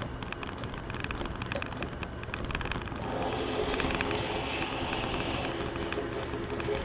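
Metal lathe running with a drill bit being fed into the workpiece. About three seconds in, a louder rough cutting sound with several steady tones joins in as the bit bites, a bit that is not cutting well.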